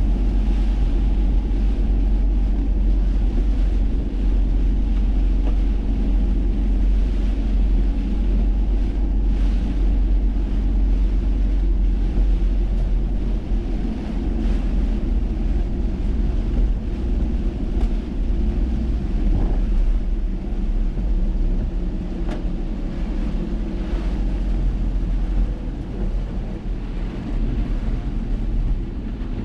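Car driving on wet roads: a steady engine and road rumble, with the hiss of water under the tyres.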